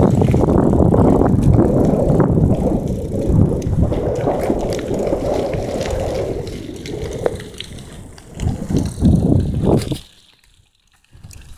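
Riding a mountain bike on a dirt trail: a loud low rush of wind on the microphone with tyre noise and scattered rattling clicks from the bike. The rush eases after about six seconds, comes back in gusts, and nearly drops out for a moment near the end.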